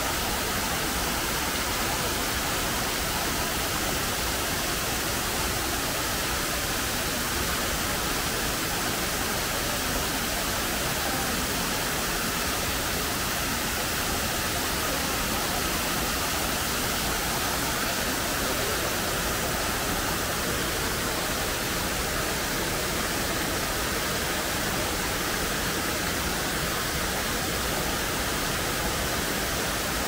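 Shiraito Falls, a wide, low curtain of many thin streams of spring water falling over a rock wall into the pool below, splashing in a steady, unbroken rush.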